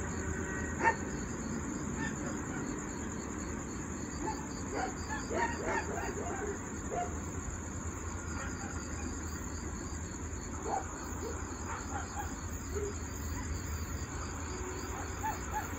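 Crickets chirping in a steady, high, pulsing trill, with a few faint short sounds scattered through it at lower pitch.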